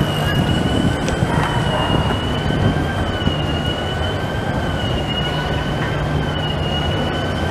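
Bombardier Flexity Outlook tram passing close as it rounds a curve in street track: a steady, slightly wavering high-pitched wheel squeal over the rumble of the running gear and a low electric hum.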